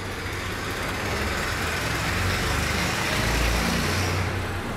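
A vehicle passing by: a steady rumble and road noise that builds to its loudest about halfway through and eases off near the end.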